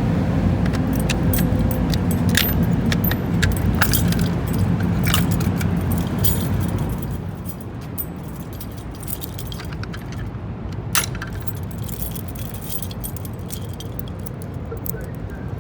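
Irregular metallic jingling and clicking over a low, steady rumble; the rumble drops away about seven seconds in.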